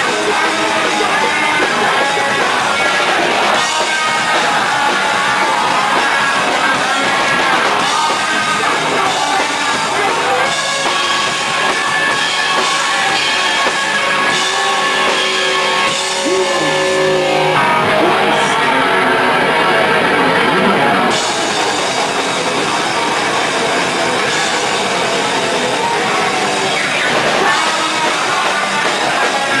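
Hardcore punk band playing live and loud: distorted electric guitars and drums, with a vocalist shouting into the microphone.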